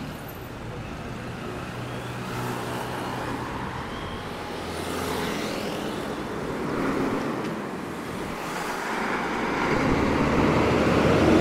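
Road traffic on a city avenue: cars driving past with engines running and tyres on the road, one vehicle coming close and growing louder near the end.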